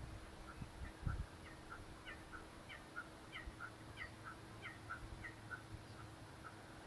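Blue-winged kookaburra giving a faint cackling call: a long run of short notes alternating low and high. It begins about half a second in and trails off near the end.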